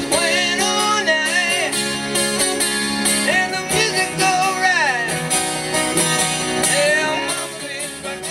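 Singing with vibrato over acoustic guitar playing: a song performed live by a singer-guitarist.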